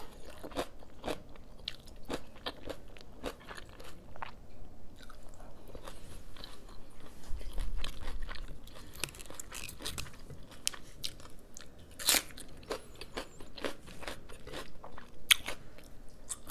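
Close-up eating sounds: a person chewing and crunching food in a run of short, crisp bites and wet mouth clicks, the sharpest one about twelve seconds in.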